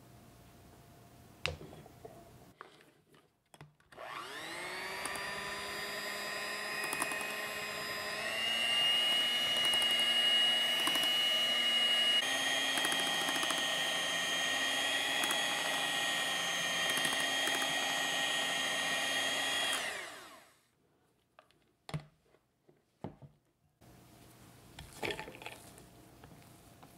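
Electric hand mixer whipping heavy cream with melted chocolate in a glass bowl: it spins up about four seconds in to a steady whine, steps up in pitch twice as the speed is raised, then cuts off and winds down. It is beating the chocolate cream to a spreadable stiffness. Near the end, a few light clicks as a silicone spatula works the cream against the bowl.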